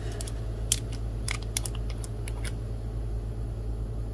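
Handling of a small glass nail-polish bottle as its cap is unscrewed and lifted off: several light clicks and taps, mostly in the first couple of seconds, over a steady low hum.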